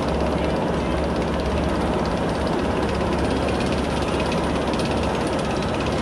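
Mack spinning roller coaster train running along its steel track, a steady rumble and rapid clatter of the wheels with rushing air.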